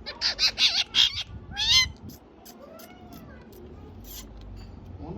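Parrot imitating a kitten's meow: a quick run of four short, high mews, then a longer meow a little under two seconds in, and a fainter, softer one after it.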